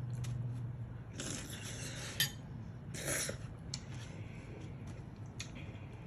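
Metal cutlery scraping and clinking against a dish of macaroni and cheese as a forkful is taken: two short scrapes with a sharp clink between them, then a few light taps.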